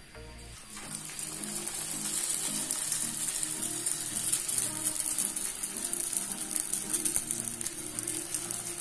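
Papdi dough discs sizzling and crackling in hot oil in a kadai, the sizzle starting about a second in and building as more discs go into the oil. Background music plays underneath.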